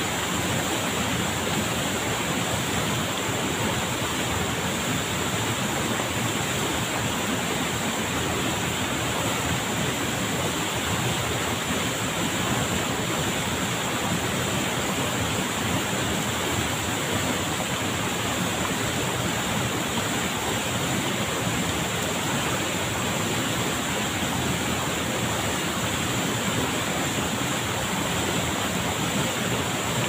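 Waterfall pouring into a rocky pool: a steady, even rush of falling water.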